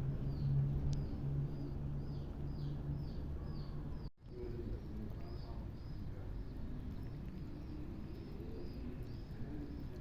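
A small bird chirping over and over, about two to three short, downward-sliding chirps a second, over a low outdoor rumble. Everything cuts out for a moment a little past four seconds in.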